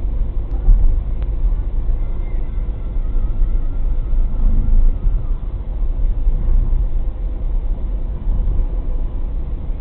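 Car interior road and engine noise picked up by a dashcam: a steady low rumble that swells and dips, as the car cruises at about 60 km/h.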